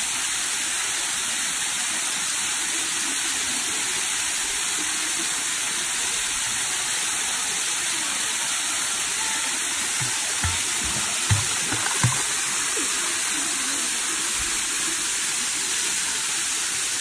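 Waterfall pouring steadily into a shallow pool, a constant rushing hiss of water. A few short low thumps stand out about ten to twelve seconds in.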